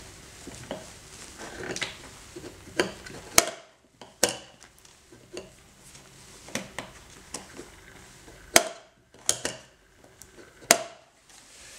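Handling clatter and sharp plastic clicks from a battery-powered rotating display turntable, worked from underneath while its battery is fitted. About five loud clicks come spread out over a soft rattle and rubbing.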